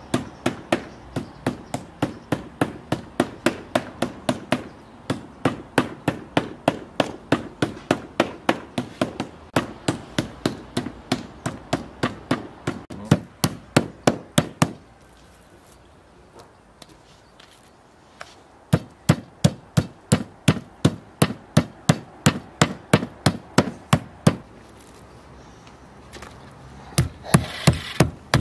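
A blade chopping raw lamb on a wooden cutting board in a steady run of strikes, about three a second. The strikes stop for a few seconds past the middle and again near the end.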